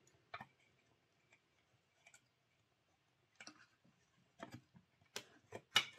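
Light clicks and small knocks of plastic model-locomotive parts being handled as the body is lifted off the chassis. A few scattered clicks at first, then more and closer together over the last couple of seconds.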